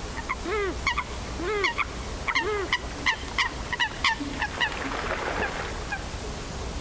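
Eurasian coots calling: a few nasal, honk-like calls, one about every second, mixed with a quick run of sharp, high, falling notes. About five seconds in comes a short spell of splashing as the coots scuffle on the water.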